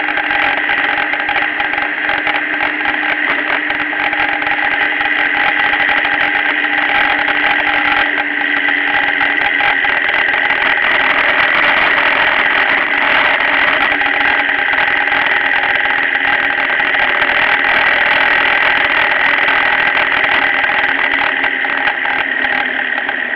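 Motorcycle riding at road speed, heard from a camera mounted on the bike: a steady engine drone mixed with heavy wind and road rush.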